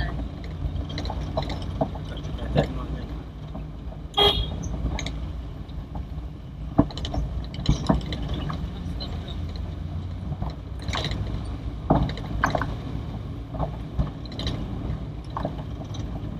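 Inside the cabin of a 1980 Toyota Corolla DX driving on a rough, uneven road: a steady low engine and road drone with frequent irregular sharp knocks from the body and suspension over bumps.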